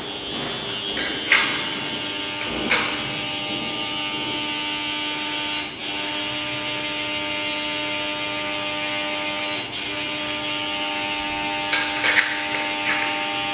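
KDK K14X5 running with a steady electrical buzz made of several held tones. A few sharp clicks come about a second in, again about three seconds in, and near the end.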